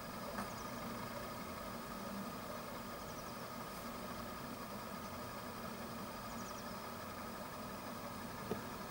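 A steady low engine hum, like a vehicle idling, with a few faint high chirps and a single sharp click near the end.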